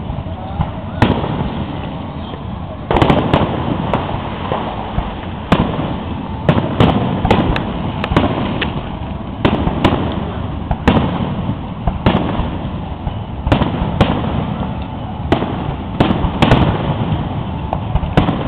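Aerial fireworks display: shells bursting overhead in a rapid series of sharp bangs, one or two a second. Each bang trails off in a short rumbling echo.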